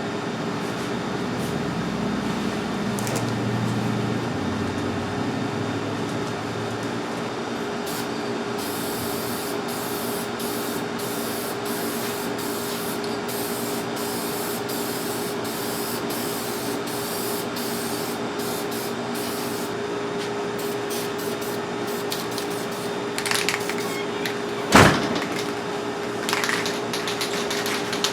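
Paint spraying in repeated short bursts of hiss, starting and stopping again and again, over a steady hum. A sharp click about 25 s in.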